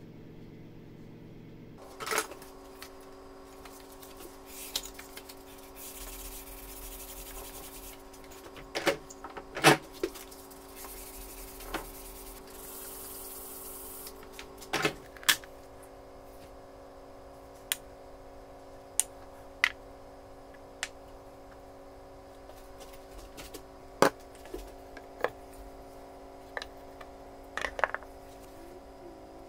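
Workshop handling of a wooden hand plane on a wooden workbench: scattered knocks and clicks of wood and tools being set down and moved, with two stretches of hissing rubbing on the wood about six and eleven seconds in. A steady hum runs underneath.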